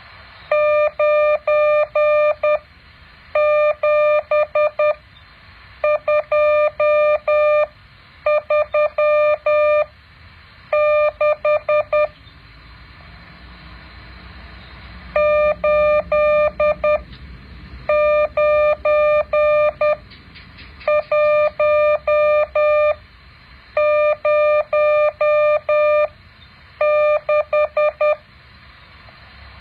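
Morse code practice tone: a steady mid-pitched beep keyed in dots and dashes, sent as about ten groups of characters with short pauses between them and a longer pause near the middle. A faint hiss lies beneath the tone.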